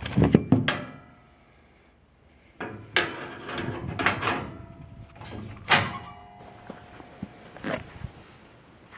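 Steel hinge rod clunking and scraping against the welded pipe sections of a homemade hinge as it is worked out: a string of separate metallic knocks, some ringing briefly, with a pause of about a second and a half near the start.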